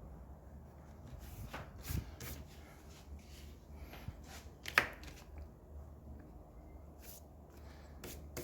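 Scattered light taps and rustles of paper and pencil as a drawing is worked on, the sharpest a little under five seconds in, over a faint low steady hum.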